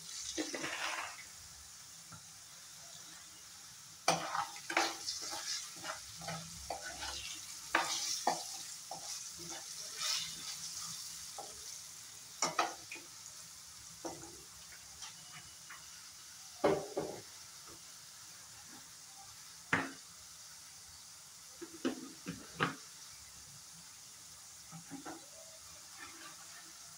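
Potato pieces frying in oil in a non-stick wok, a steady sizzle, while a steel ladle stirs them and clicks and scrapes against the pan. The stirring is busiest from about four to thirteen seconds in, then comes in a few short strokes.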